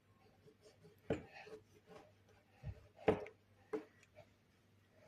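A few separate knocks of a kitchen knife on a cutting board while oranges are cut into small pieces.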